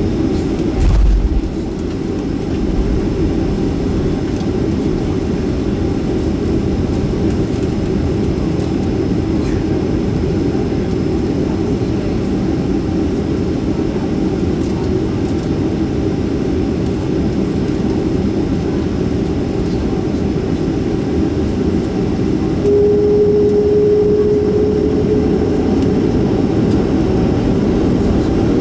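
Boeing 737-400 with CFM56-3 jet engines at low power while taxiing: a steady low rumble, with a brief low thump about a second in. A steady hum joins about 23 seconds in and lasts a couple of seconds.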